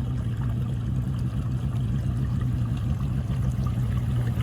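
Boat motor running steadily with a low, even hum, over the rush of water and air.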